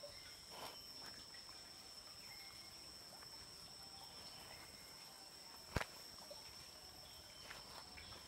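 Quiet outdoor ambience: a steady high-pitched whine with faint short chirps scattered through it, and one sharp click about six seconds in.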